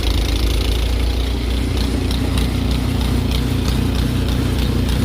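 Small engine running steadily at a constant speed, as of a snowblower clearing snow, with a light clicking about twice a second over it.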